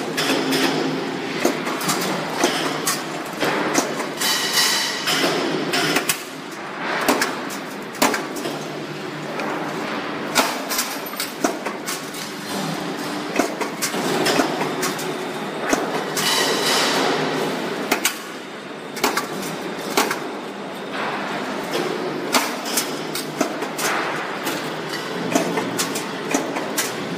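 Steel-strip punching and forming production line running: a steady machinery din with frequent sharp metallic clanks and knocks at irregular intervals.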